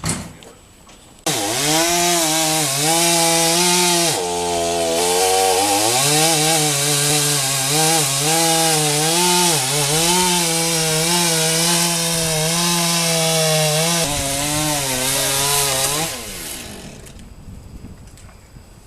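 Chainsaw cutting into oak, its engine note wavering and dipping under load as the chain bites and recovering between dips. It starts suddenly about a second in, sags lower for a couple of seconds soon after, and dies away near the end.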